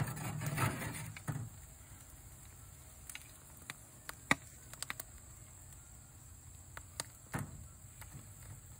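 Metal tongs moving smoked pig tails on a smoker grate: a shuffling burst in the first second or so, then a few scattered light clicks of the tongs against the meat and grate, over a steady low hum.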